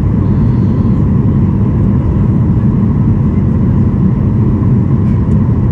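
Steady cabin noise of a Boeing 737 MAX 8 in flight: the rush of its CFM LEAP-1B engine and the airflow, heard from a window seat beside the engine, with a faint steady whine over the low noise.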